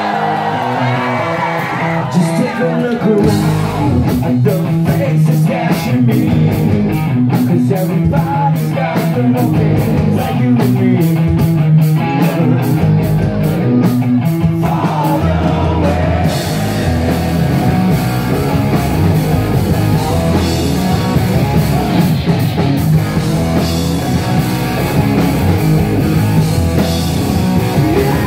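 Live rock band playing with electric guitars, bass and drums. It has a tight, choppy rhythm for the first half, then fills out with cymbals from about halfway.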